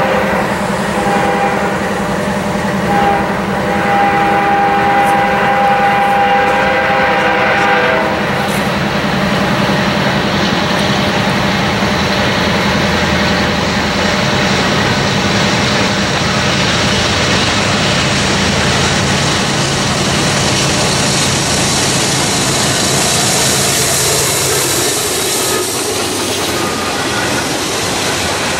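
Freight train horn sounding a long chord, with a short break about three seconds in, stopping about eight seconds in. Then the diesel engines of the lead GE ES44AC and D9-40CW locomotives rumble and grow louder as they pass, and the freight cars roll by with wheel clatter.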